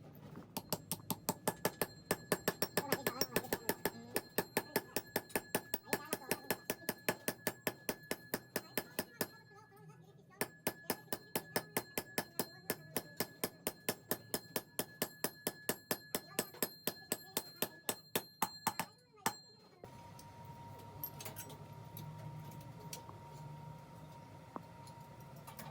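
Fast, evenly spaced metal strikes, about four or five a second, each with a ringing tone, in two long runs with a short break between them. Near the end they stop and give way to a steady machine hum with a faint held tone.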